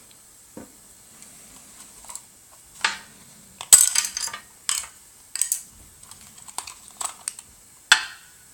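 Scattered clicks, taps and clatters of a plastic Logitech M570 trackball and its ball being handled and turned over on a hard work surface during disassembly. The loudest clatters come about halfway through and again near the end.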